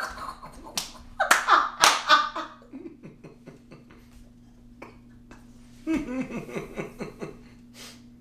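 A few sharp smacks in the first two seconds, then short bursts of low, held-back laughter, with another run of chuckles about six seconds in.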